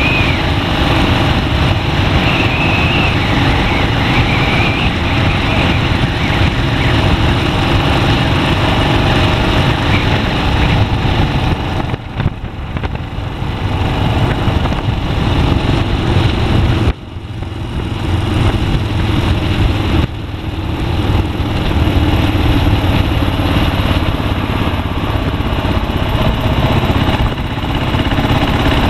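Kawasaki KLR dual-sport motorcycle's single-cylinder engine running at road speed, heard from the bike. It goes quieter briefly twice, about twelve and seventeen seconds in, then picks up again.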